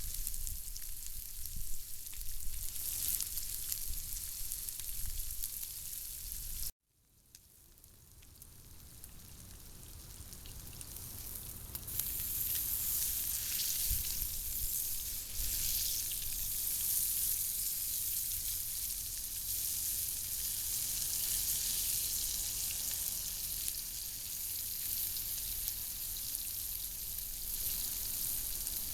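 Food sizzling as it fries in a pan, a steady frying hiss. About seven seconds in it cuts out, then fades back up over several seconds.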